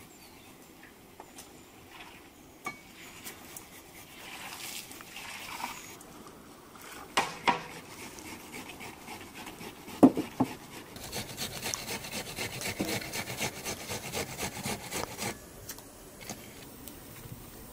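Onion being grated on a flat metal hand grater over an enamel bowl: a run of quick scraping strokes from about eleven seconds in. Before that come scattered clinks and knocks of dishes, one sharp knock about ten seconds in.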